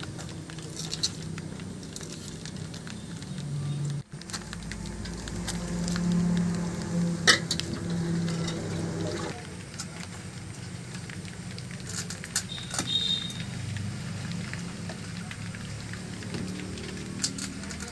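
Fish being cut on a hansua, a curved blade fixed upright on a wooden base: scattered scraping and slicing noises with a few sharp clicks, over a low steady hum.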